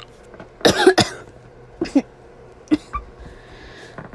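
A person coughing from a sore throat: a quick double cough a little over half a second in, then two single coughs about a second apart. She thinks she may be sick.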